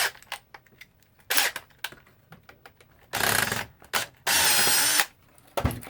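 Clicks, knocks and clatter of the plastic and metal parts of an old label machine being handled during disassembly, with a louder rattling burst about three seconds in and a longer, louder scraping burst with a wavering pitch about a second later.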